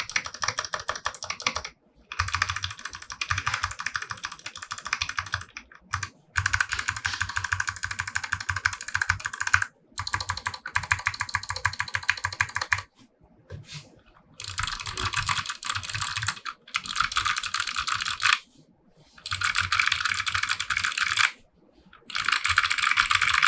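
Fast typing on a custom 60% mechanical keyboard with clicky Kailh Box White switches on a brass plate, in runs of rapid clicky keystrokes a few seconds long, broken by short pauses.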